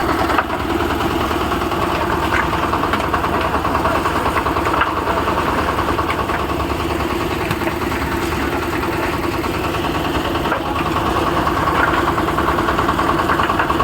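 Engine of a concrete mixer running steadily at a constant speed, with a fast even chugging.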